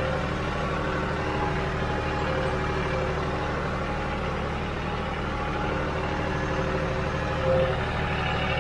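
John Deere 5065 tractor's diesel engine running steadily under way, heard from the open driver's seat.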